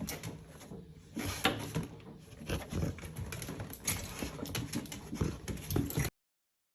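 A dog moving about, making irregular scuffs and small clicks. The sound cuts off suddenly about six seconds in.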